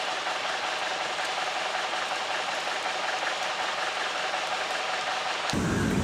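A steady, high, rattling insect drone. About five and a half seconds in it cuts to a lower, steady rumble.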